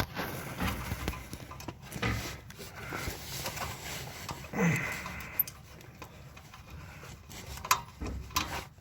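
Scattered light metallic clicks and knocks of hand tools working on the bolts of an exhaust manifold heat shield, with a brief low grunt about halfway through.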